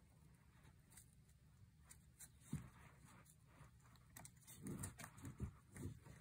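Faint handling sounds of a chin strap's webbing being fed through a small metal slide adjuster: a soft click about halfway through, then a run of light taps and rustles near the end.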